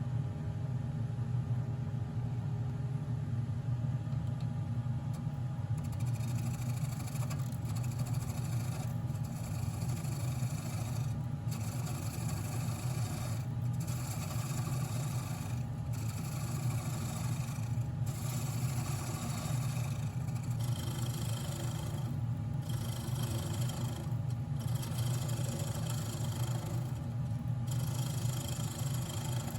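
Wood lathe motor running with a steady hum. From about six seconds in, a hissing scrape of work against the spinning wood comes in repeated passes of about two seconds, broken by short gaps.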